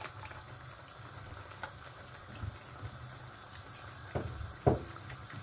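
Minced meat in a terracotta pot bubbling steadily as its water boils off, while whisked yogurt is added. Two knocks come a little after four seconds in.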